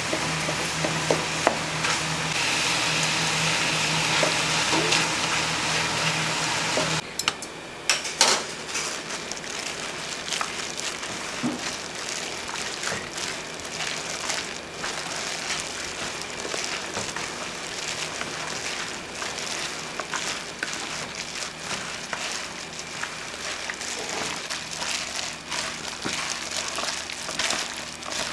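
Food frying in hot oil, a steady sizzle and crackle. A steady low hum runs under it for the first seven seconds and cuts off abruptly, after which the crackling goes on alone.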